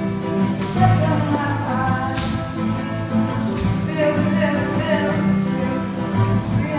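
Acoustic guitar played live with a voice singing over it. Three brief high shaken sounds cut through, about one second in, a little after two seconds, and near the middle.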